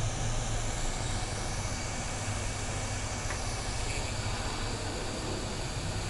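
Hot air rework gun blowing steadily while heating solder on a circuit board: an even airy rush with a low hum underneath.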